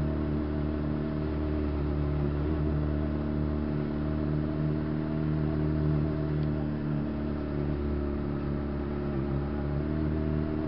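Honda CBR600RR inline-four motorcycle engine running steadily at low speed, heard from the rider's position.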